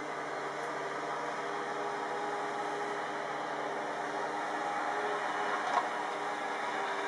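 Snowplow truck's diesel engine running steadily, slowly growing louder as the truck comes closer, with one short sharp knock about six seconds in.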